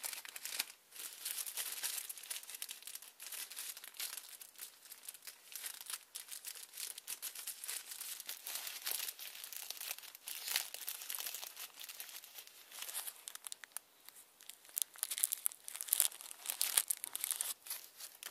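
Clear plastic bag from an oil filter kit being handled, crinkling in irregular crackles that grow louder near the end.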